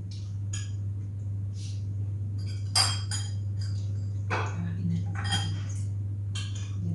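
Cutlery clinking and scraping against plates and bowls as people eat. There are scattered light clinks, the sharpest about three seconds in, over a steady low hum.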